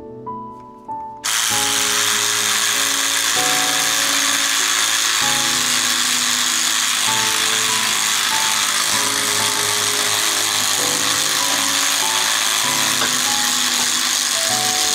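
Handheld electric scrubbing brush starting suddenly about a second in, its spinning bristle head scrubbing a wet gas stovetop with a steady whirring hiss.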